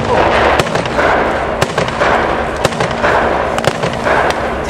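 Irregular gunfire: many sharp cracks mixed with heavier booming reports that echo and swell, over a steady low engine drone from armoured vehicles.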